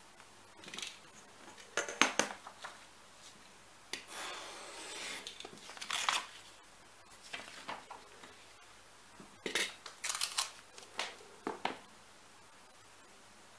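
Sheets of printed paper rustling and sliding over a cutting mat, and a snap-off utility knife slicing through the paper, heard as a series of short, irregular scrapes.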